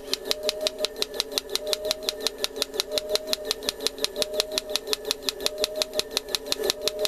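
Electric breaker hammer on an RC excavator pounding concrete in a fast, even stream of sharp blows, about eight a second, over the steady whine of its electric motor.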